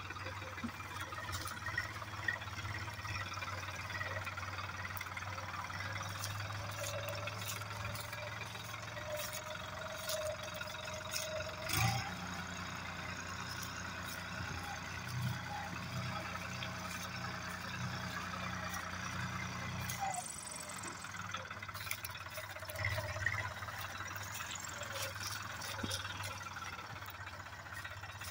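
New Holland tractor's diesel engine running under load while it hauls a loaded trolley over a stubble field. The engine note shifts about twelve seconds in and again near twenty seconds, with scattered clicks and knocks over it.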